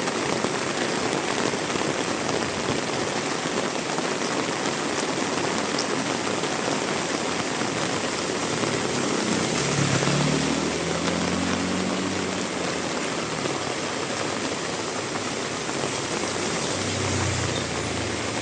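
Heavy rain pouring steadily, splashing on surfaces. About halfway through, a vehicle engine comes up, rising in pitch and then holding for a few seconds, with a fainter low engine hum again near the end.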